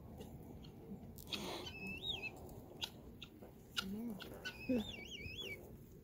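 A bird's wavering, whistled call, heard twice: a short one about two seconds in and a longer warble of three or four wobbles near the end, over faint scattered clicks.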